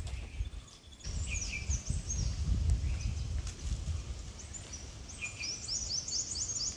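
A bird calling in a run of quick, high, falling notes about a second in, then a faster run near the end, over a low rumble.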